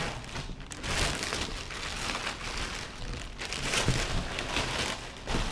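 Clear plastic wrapping crinkling and rustling in irregular bursts as a mini longboard is pulled out of it.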